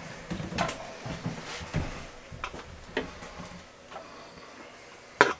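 Scattered light clicks and knocks from wooden medicine-cabinet doors being handled, with one sharp, louder knock near the end.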